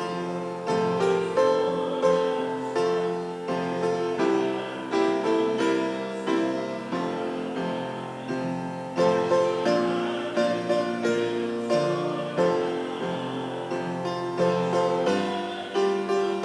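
Piano playing a hymn tune in steady chords, each struck chord fading away before the next.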